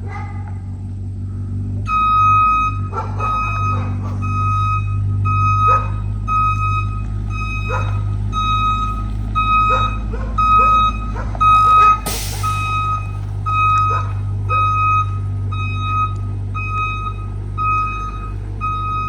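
School bus backing up: its diesel engine running with a low steady hum while the reverse alarm beeps about once a second, starting about two seconds in. A short loud hiss cuts in about twelve seconds in.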